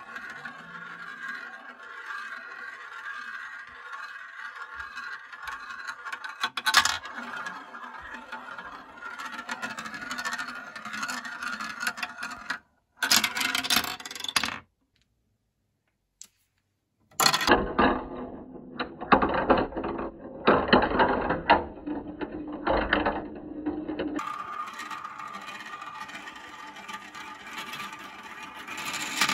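Plastic marbles rolling through a Kumon Kumikumi Slope plastic marble run: a steady rolling whirr as they circle in the funnel bowls, and clattering with sharp clicks as they drop down chutes and between track pieces. The sound drops out for about two seconds near the middle, then comes back as a busy stretch of clattering before the steady rolling resumes.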